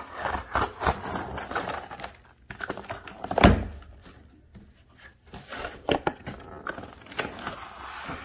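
Corrugated cardboard shipping box being torn and pulled open by hand: scraping and rustling of cardboard flaps, with one loud thump about three and a half seconds in.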